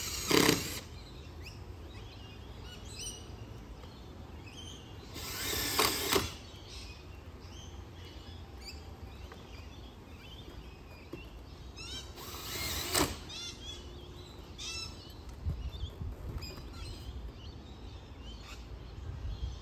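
Cordless drill driving screws into gate hinges in three short bursts of about a second each, with birds chirping throughout.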